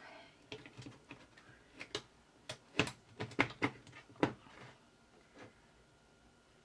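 Sharp plastic clicks and knocks as a D-cell battery is pulled out of its plastic holder and a fresh one snapped in, a quick irregular run with the loudest clicks near the middle.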